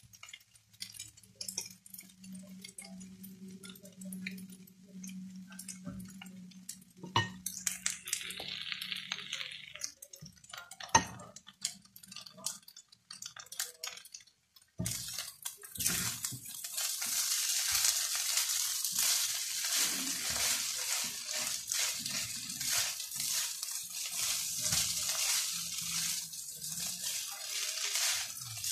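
Fried rice being stirred and scraped around a pan with a silicone spatula, with scattered taps and clicks against the pan. About halfway through a steady, louder sizzling hiss of the rice frying sets in and carries on.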